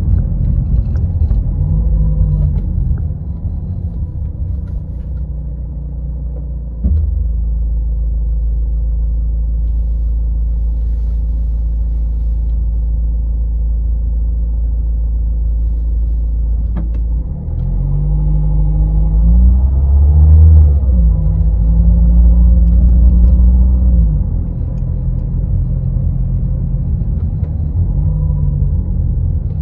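Renault car being driven, its engine and road noise making a steady low rumble. In the second half the engine pitch rises and falls a few times and the sound grows louder, then settles back.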